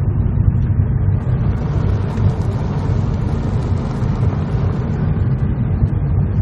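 Road noise inside a moving car on a gravel road: a steady low rumble of tyres and engine.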